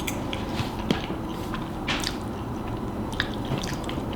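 Close-miked eating: chewing with wet mouth smacks and clicks, several a second, irregularly spaced.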